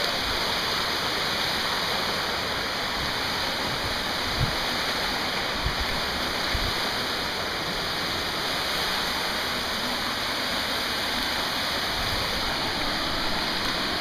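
Steady rush of a waterfall pouring into a pool, with a few short dull thumps in the middle.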